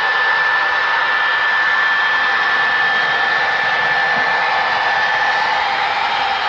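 Model freight train cars rolling along the track close by: a steady whirring rush of wheels on rails with a steady high whine running through it.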